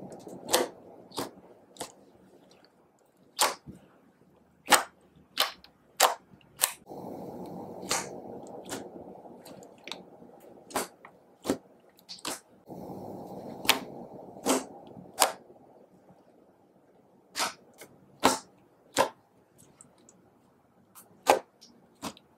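Slime being kneaded and pressed by hand, giving irregular sharp pops and clicks as trapped air bursts. Two stretches of soft, wet squishing come between the pops.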